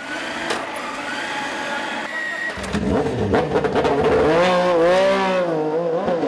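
A Moto2 racing motorcycle's Triumph 765cc three-cylinder engine running. It gets louder and deeper about two and a half seconds in, and then the revs rise and fall as the throttle is blipped.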